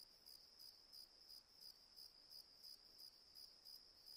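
Faint crickets chirping steadily, about three chirps a second.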